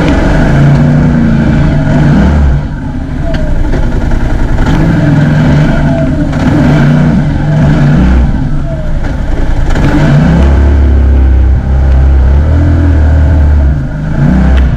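Side-by-side UTV engine running and revving under load on a rough trail, its pitch rising and falling with the throttle and dipping briefly a few times, with heavy low rumble in the second half.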